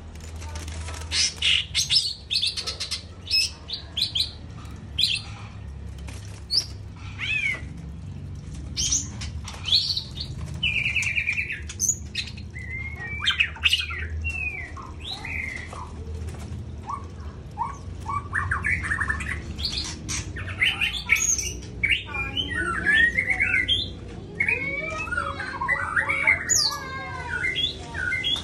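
Green leafbird (cucak hijau) calling: a varied, busy run of sharp chirps, squawks and sweeping whistled notes, with a low steady hum beneath.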